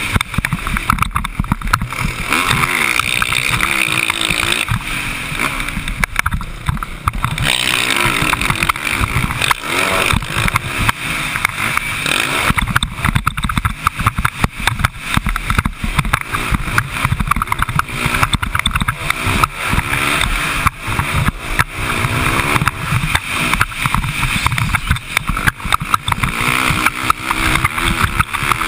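Dirt bike engine heard from on board the moving bike, revving up and falling back again and again as the rider works the throttle and gears around the motocross track, under heavy wind rush and buffeting on the microphone.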